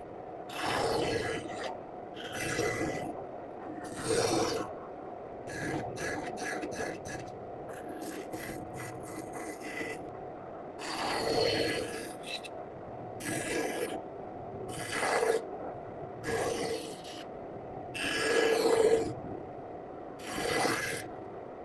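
A hand tool scraping across wood in repeated half-second strokes, roughly one every one to two seconds, with a quick run of short ticks about a third of the way in.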